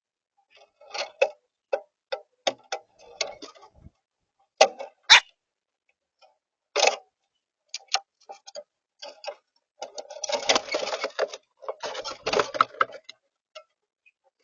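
Common grackles calling: an irregular run of short, sharp chack notes, with one quick upward squeak and two longer, scratchy stretches later on.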